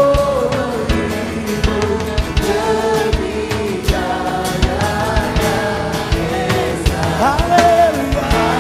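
Live band music with singing: held sung notes over a drum kit beating steadily and guitar.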